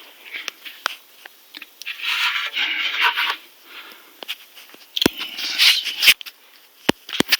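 Two spells of scraping and a few sharp clicks as the truck's front brake parts are handled, with the wheel off to check the thin pad and the rotor.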